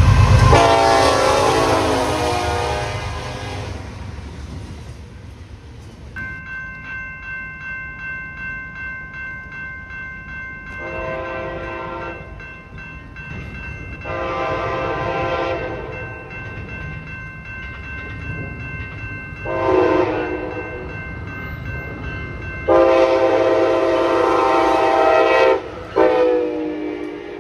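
A BNSF freight locomotive's air horn sounds loud as it passes, then fades over the first few seconds. Grade-crossing bells then ring steadily at about two strokes a second. A Pacific Surfliner passenger train's horn blows the grade-crossing pattern through the crossing: two long blasts, a short one and a long one, with one more blast near the end.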